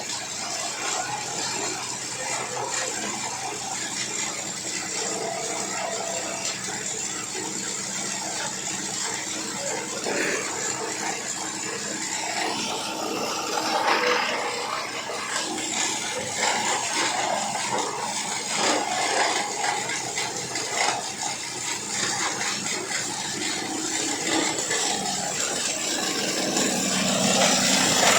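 An 18-inch PET bottle grinder running: a steady motor hum under dense, irregular clattering, which grows louder near the end.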